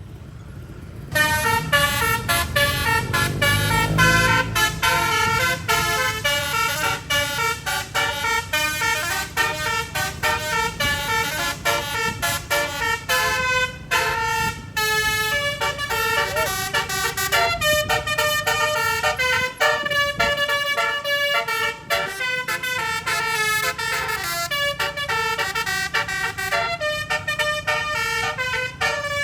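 A bus's 12-note, 24-trumpet stereo telolet horn plays a fast, jingle-like melody of quickly changing notes in runs with short breaks. It starts about a second in, over a low engine rumble in the first few seconds.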